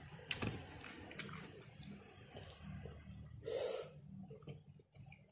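A person eating raw fruit dipped in rujak sauce: faint wet chewing and mouth clicks, with a louder short bite about three and a half seconds in.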